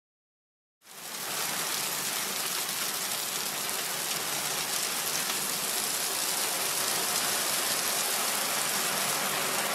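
Sound effect of gravel or small stones pouring out in a steady rushing stream, starting about a second in after a moment of silence.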